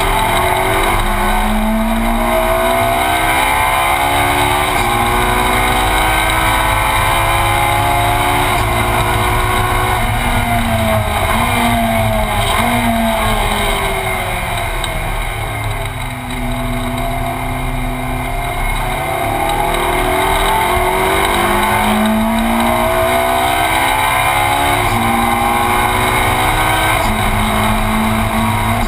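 Ferrari 458 Challenge's naturally aspirated 4.5-litre V8 heard from inside the cabin at full race pace, revs climbing and stepping back with each gear change. It drops in pitch and eases off briefly a little past the middle, then pulls hard up through the gears again.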